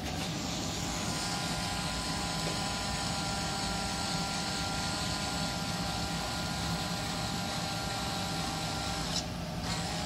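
Linear actuator motor in the DuCTT robot's strut running with a steady whine and hiss. It stops briefly about nine seconds in, then starts again.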